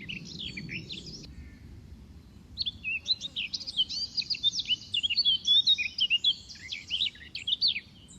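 Birdsong: a fast, varied run of high chirps and whistles, a short burst at the start and then a long dense stretch from about two and a half seconds in, over a low background rumble.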